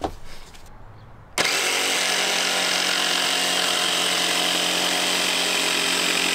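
Ryobi jigsaw cutting plywood, a steady buzzing saw noise that starts abruptly about a second and a half in and holds even.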